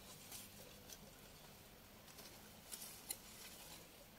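Near silence with a few faint, short rustles of leaves and undergrowth.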